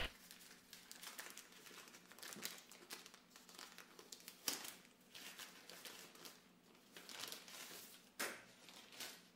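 Plastic wrapping crinkling faintly as a small part is unwrapped by hand, with a few sharper crackles about halfway through and near the end.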